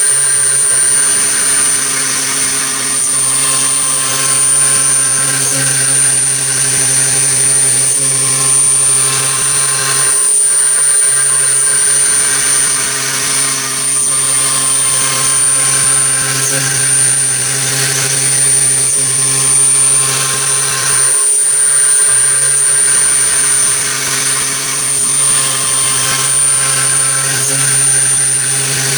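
Blue Elephant ES3-3015 stone CNC machining center running under test: a steady high whine over a hum of several steady tones, dipping briefly twice, about a third and two-thirds of the way through.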